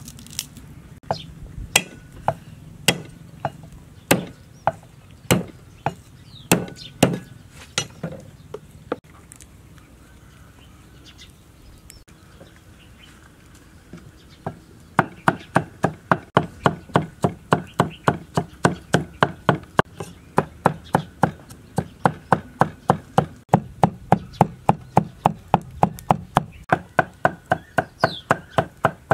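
Cleaver chopping garlic on a wooden chopping board. A few scattered single knocks come first, then about halfway in the chopping turns fast and steady, at about three to four strokes a second.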